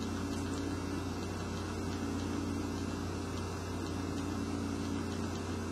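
A steady low hum of room background noise, with no change in level throughout.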